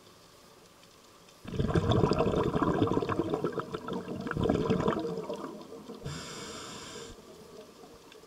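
A scuba diver breathing through a regulator underwater. From about a second and a half in, a loud crackling rush of exhaled bubbles lasts about three and a half seconds and fades. About six seconds in comes a hiss of about one second as the next breath is drawn in.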